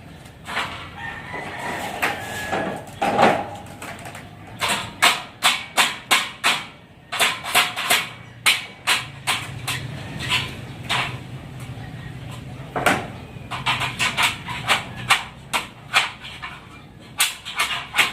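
Sharp knocks or taps repeated in runs of about two to three a second, with short pauses between runs.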